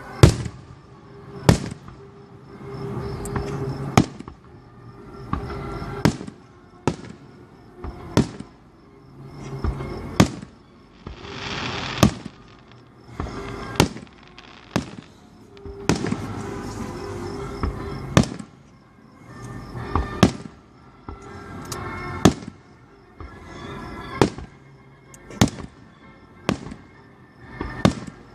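Aerial fireworks shells bursting one after another, a sharp bang every second or two with a rumbling echo after each, and a longer hissing crackle about midway.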